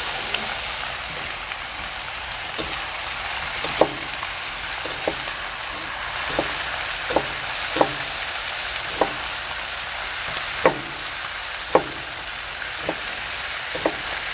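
Thick-cut bacon sizzling steadily on a flat-top griddle. A chef's knife chops onion on a plastic cutting board, giving about a dozen sharp, irregular taps, roughly one a second.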